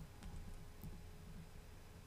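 Faint room tone: a low steady hum with a couple of tiny clicks.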